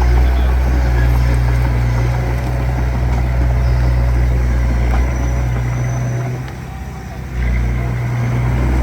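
Diesel engine of a small bulldozer working dirt, a steady low drone with some clatter over it. The engine eases off for about a second near the end, then picks back up.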